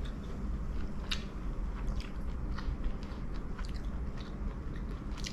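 A person chewing and biting into food close to the microphone, with small crunchy clicks over a steady low background rumble.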